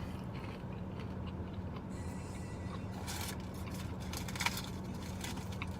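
Eating and handling of fried-chicken takeout: a few faint crinkles and clicks over a steady low hum.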